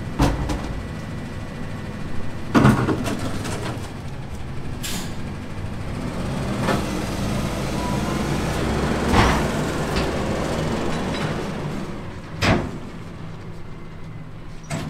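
Autocar ACX McNeilus rear-load garbage truck running steadily, with sharp metallic clanks and bangs every couple of seconds, easing off near the end.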